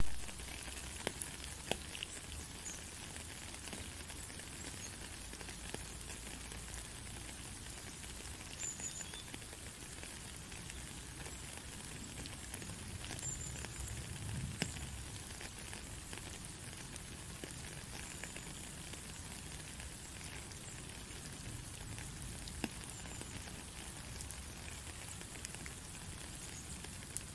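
Steady rain falling on a puddle and wet stony ground: an even hiss with scattered sharper drip ticks, starting abruptly.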